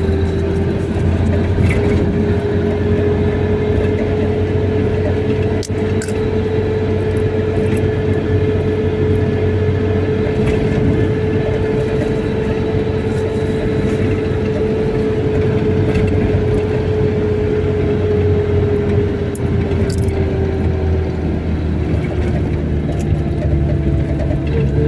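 A car running steadily on the road, with a continuous engine and road drone whose pitch holds level and then slowly falls over the last few seconds.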